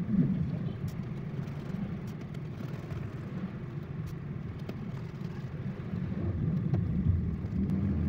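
Low steady rumble, with faint scattered clicks from a small screwdriver backing out the screws of a laptop's 2.5-inch drive bay bracket.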